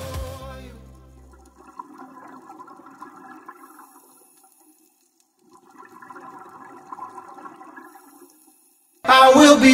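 Scuba diver's exhaled bubbles venting from the regulator underwater: two long bubbling exhalations of about three seconds each, with a short quiet pause between them. A song fades out at the start, and music with singing comes in loudly near the end.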